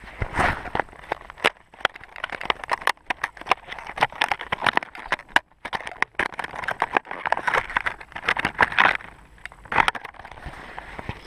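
A fishing lure's cardboard box and plastic packaging being handled and opened close to the microphone: an irregular run of crackles, clicks and rustles.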